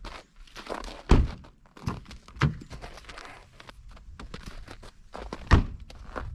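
Footsteps scuffing and crunching on icy, frozen ground, with two heavy thuds, about a second in and near the end.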